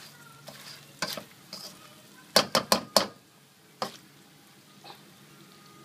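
A plastic spatula scraping and knocking against a stainless steel wok as garlic prawns are stir-fried, with a faint sizzle underneath. A quick run of four sharp knocks a little over two seconds in is the loudest part, and one more knock follows about a second later.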